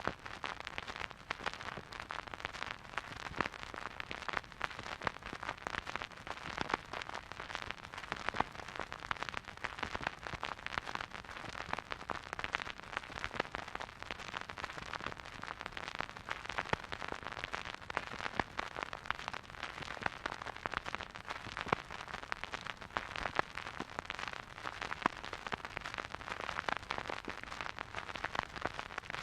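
Vinyl record surface noise from a silent groove: a steady hiss with dense, irregular crackles and occasional louder pops.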